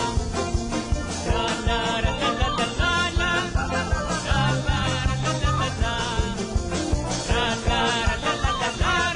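Live band playing an upbeat song with a steady drum beat, bass guitar, oud and an end-blown ney flute.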